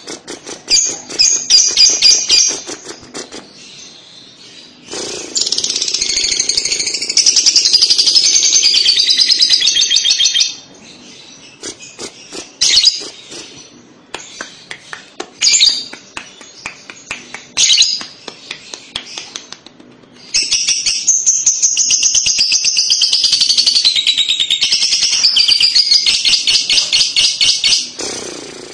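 Lovebird's kekek (ngekek) song: long runs of rapid, high chattering trill, the two longest lasting about five and eight seconds, with shorter bursts near the start and single sharp chips in between. This is the kekek played as a lure to get young lovebirds to sing.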